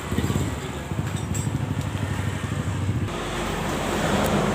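A motorcycle engine running steadily with a regular low pulsing, its sound shifting abruptly about three seconds in.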